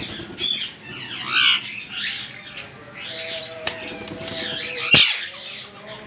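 Several Alexandrine parakeets calling: a run of short, harsh squawks and chirps, with a sharp crack about five seconds in.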